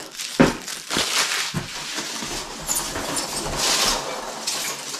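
Foam packing peanuts rustling as a hand digs through a cardboard box full of them, with a sharp knock about half a second in.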